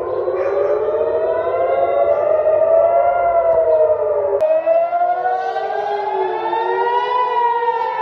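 Israeli civil-defence air-raid sirens wailing, several at once, their pitches slowly rising and falling out of step with one another: a rocket-attack warning. The sound changes abruptly about halfway through.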